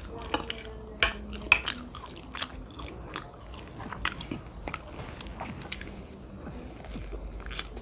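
Close-up eating sounds: chewing and mouth smacks on a mouthful of cheesy spaghetti with meatballs, a string of irregular sharp clicks.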